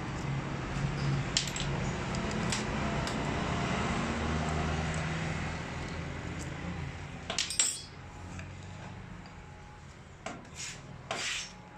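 Light metallic clicks and clinks of a hand tool and small steel parts as the top cover screws of a Toyota 5L diesel injection pump are undone and the cover is lifted off. A sharp cluster of clinks comes about seven and a half seconds in, with a few more near the end.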